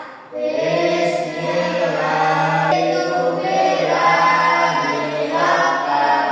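A class of children praying aloud together in unison, in a drawn-out, sing-song chant that starts about a third of a second in.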